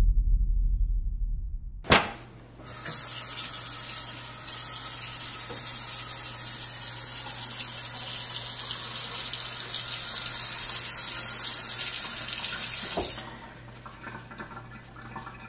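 A low droning hum that cuts off about two seconds in. Then a kitchen faucet runs into a metal sink with a steady splashing hiss for about ten seconds and is shut off.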